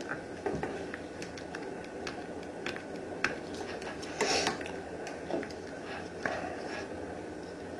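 Scattered light clicks and taps from hand-trimming vinyl wrap film, with one louder brief rustle about four seconds in, over a steady background hum.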